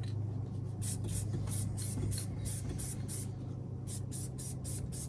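Aerosol can of spray adhesive sprayed in quick short hissing bursts, about four a second, starting about a second in, with a brief pause near three and a half seconds before it goes on. A steady low hum runs underneath.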